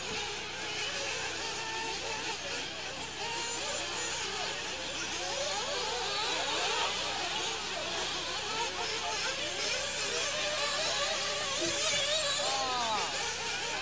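Several 1/8-scale nitro RC buggies' small two-stroke glow engines racing at once. Their high whines rise and fall as the cars accelerate and brake, and one engine is louder, its pitch sweeping, about a second before the end.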